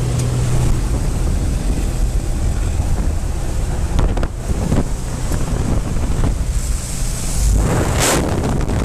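Loud wind rushing over the microphone, with a low engine drone from the jump plane underneath. The wind surges louder near the end.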